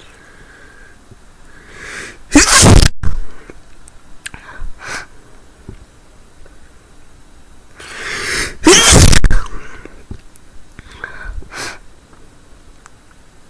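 A woman sneezing hard twice, about six seconds apart. Each sneeze follows a rising in-breath, and a few short, softer sounds come after each one.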